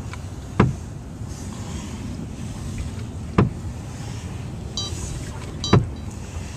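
Small boat drifting on calm water, with steady wind noise on the microphone and three sharp slaps of water against the hull, each about two and a half seconds apart.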